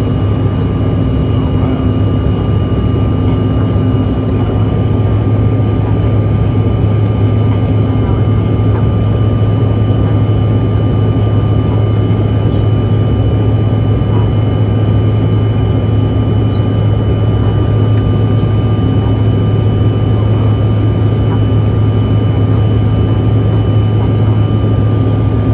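Steady cabin noise inside a jet airliner in flight: a loud, constant low hum with a few steady tones above it.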